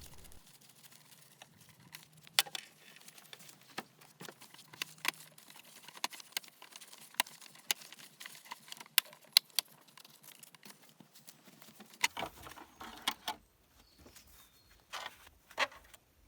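Irregular sharp clicks and light knocks of hand work on an engine's top end: spark plug leads, vacuum lines and the cover's screws being undone and the plastic engine cover handled. A few louder clicks stand out, with a quick run of them near the end.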